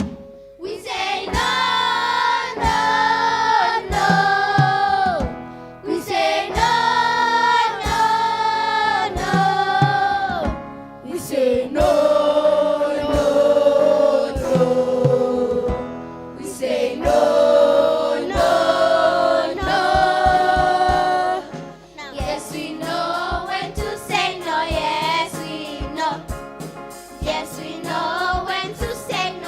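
A choir singing a gospel song in held notes, phrase after phrase, with short breaks between phrases and a light steady beat underneath.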